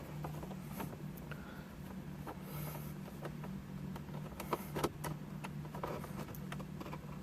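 A Phillips screwdriver backing a screw out of plastic dashboard trim: scattered small clicks and taps of metal on screw and plastic, over a steady low hum.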